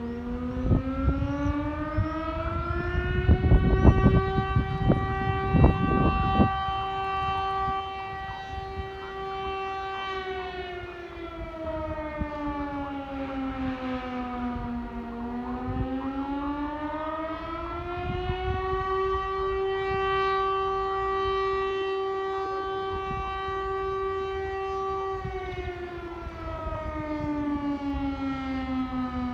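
Civil-defence air-raid siren wailing: a single tone rises, holds for several seconds, falls, then rises and holds again, in slow cycles of about fifteen seconds, sounding an air-raid alert. A low rumble comes and goes in the first six seconds and is the loudest thing heard.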